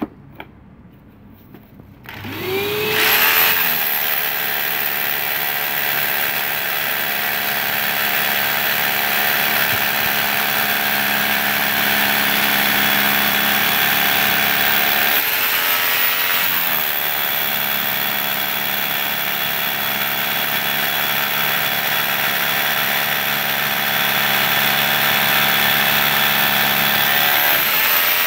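DeWalt D25144K SDS-plus rotary hammer drilling a 13 mm hole into concrete, with a DeWalt DWV901L dust extractor running on the D25301D dust-extraction attachment. The motors spin up about two seconds in after a click, then run loud and steady. The motor note dips and recovers briefly around the middle and again at the end.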